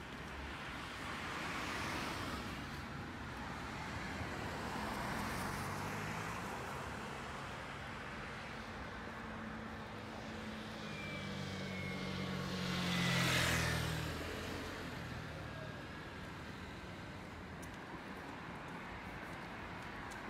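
Cars passing on the road: tyre noise swells up and fades a few times, and one louder passing vehicle with a low engine hum comes about two-thirds of the way through.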